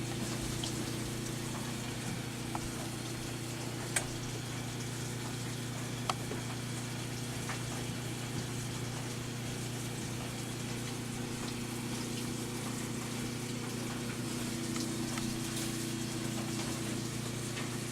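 Steady low electrical or mechanical hum, with a couple of faint clicks about four and six seconds in.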